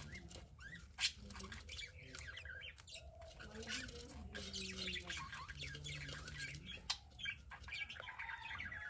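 Budgerigars chirping and chattering in a dense run of short high calls, with a sharp click about a second in and another about seven seconds in.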